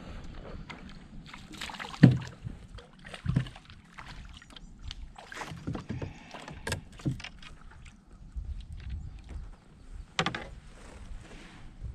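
Knocks and bumps on a small fishing boat's hull with a soft rumble of the boat and water between them; the sharpest knock comes about two seconds in, with more scattered through the rest.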